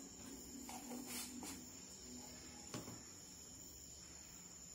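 Quiet room tone with a faint, steady high-pitched trill running throughout, and a few soft knocks as a jar and spoon are handled at the counter, the clearest nearly three seconds in.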